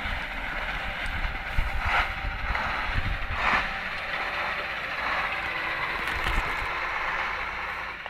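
KAMAZ truck's diesel engine running as the truck creeps slowly over rutted ice, with a couple of brief louder noises about two and three and a half seconds in.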